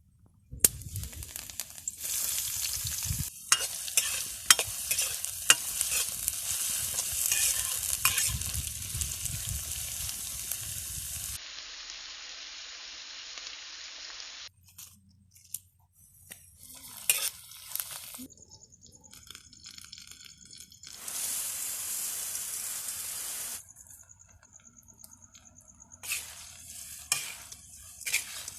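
Puffed rice (murmura) being stirred in a hot pan: a dense crackling hiss with many sharp clicks and scrapes. After about eleven seconds the sound breaks into shorter hissing stretches and scattered clicks, with abrupt cuts between them.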